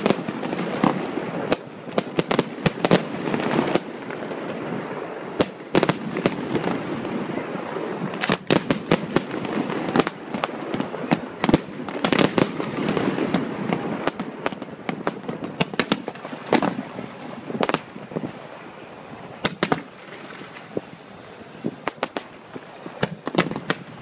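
Aerial fireworks display going off in rapid succession: many sharp bangs and crackling bursts, dense for most of the time and thinning out and quieter about three-quarters of the way through.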